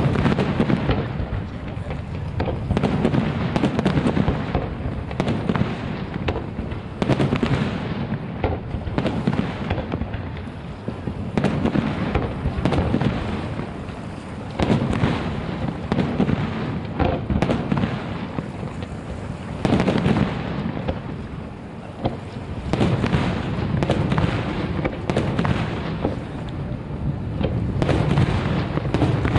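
Fireworks display: aerial shells bursting in quick succession, a dense barrage of booms and crackles that swells and eases every few seconds without stopping.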